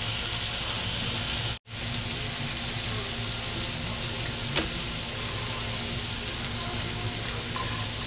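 Sliced vegetables and meat sizzling steadily as they stir-fry in a frying pan. The sound drops out for an instant about a second and a half in, and there is a single light click about four and a half seconds in.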